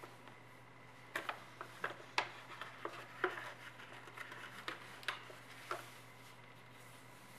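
Square origami paper being folded and creased by hand: a string of crisp paper crackles and rustles from about a second in to near six seconds, over a low steady hum.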